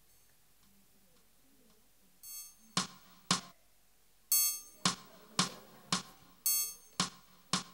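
Metronome-style count-in: a short accented beep on each downbeat followed by sharp clicks, about two beats a second and four to a bar, over two bars, leading into a piano entry.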